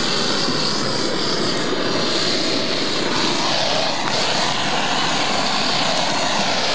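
Handheld gas blowtorch burning with a loud, steady hiss, shut off abruptly at the very end.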